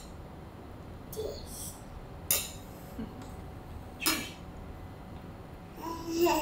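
Drinking glasses and tableware handled on a wooden table: a few light clinks and knocks about one, two and four seconds in, over a low steady room hum.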